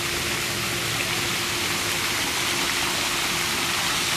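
Steady rushing hiss with a faint steady low hum underneath, unchanging in level.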